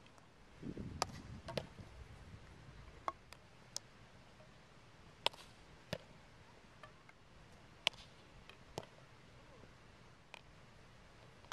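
About nine sharp, irregularly spaced clacks of field hockey sticks striking the hard ball, and of the ball hitting the goal and the goalkeeper's gear. There is a brief low rumble about a second in.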